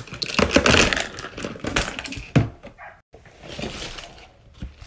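A pile of plastic fidget toys being emptied out, clattering and rattling against each other in a dense jumble, then breaking off about three seconds in to softer, scattered clicks.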